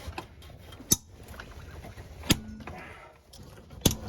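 Three sharp metallic clicks, about a second and a half apart, from hand tools working on the axle bolts.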